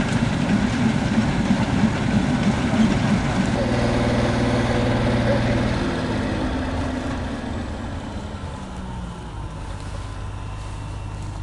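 Bizon Z056 combine harvester's diesel engine and threshing gear running loud while cutting grain. From about seven seconds in it settles into a quieter, steady run as the combine stands with straw bunched in its header.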